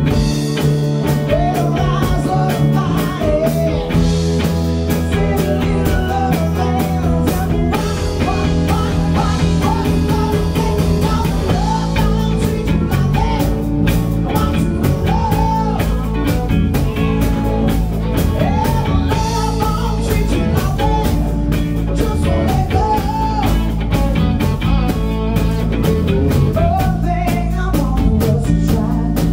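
Live rock band playing: a woman sings a melody into a microphone over two electric guitars and a drum kit keeping a steady beat.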